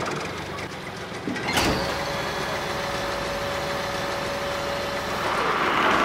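Heavy wheel loader's engine running, jumping suddenly louder about a second and a half in, with a steady whine through the middle and the noise building again near the end.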